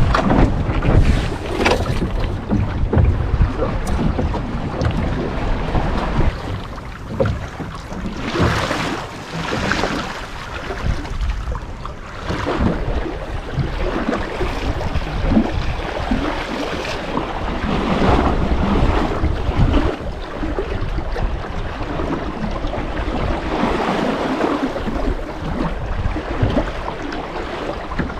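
Wind buffeting the microphone over moving, splashing water, in irregular gusts.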